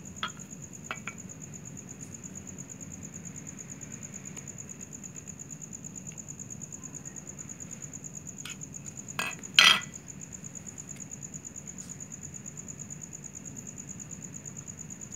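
Metal tools clinking and knocking a few times: a couple of light clicks near the start, then a quick cluster about nine to ten seconds in, the loudest. Under them runs a steady high-pitched insect drone and a low hum.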